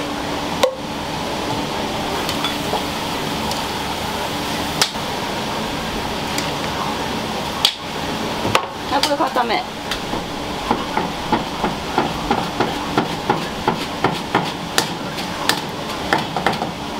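Ramen shop kitchen clatter over a steady background of cooking noise, with scattered sharp knocks. From about halfway through comes a run of quick, fairly regular knocks, several a second.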